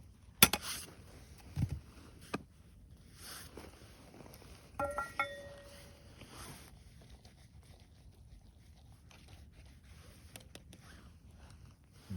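Scattered clicks and knocks of things being handled, the sharpest about half a second in, with a short ringing clink about five seconds in.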